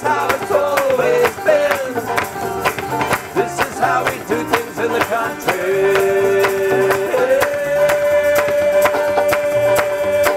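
Country string band, two banjos and an upright bass, playing a lively tune with hand claps on the beat. About halfway in, voices hold one long note that runs to the end.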